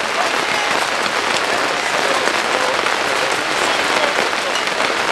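Steady crackling noise, like a dense patter, with faint voices in the background.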